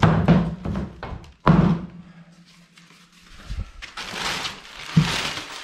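Two heavy thunks as heavy belt grinder parts are handled and set down, the second ringing on for about two seconds with a low hum. From about four seconds in, a hissing rustle follows.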